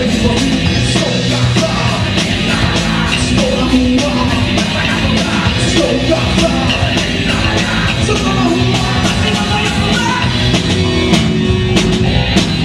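Rock band playing live and loud: electric guitar, bass and a drum kit with steady cymbal hits, and a voice singing over them.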